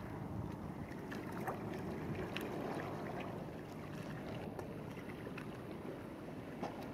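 Steady outdoor ambience, an even rushing noise, with a few faint scattered ticks.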